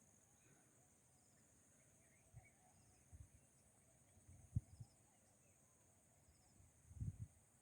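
Faint, steady high-pitched chorus of insects such as crickets, with short faint chirps repeating about once a second. A few brief low thumps break in, the strongest about four and a half seconds in and near the end.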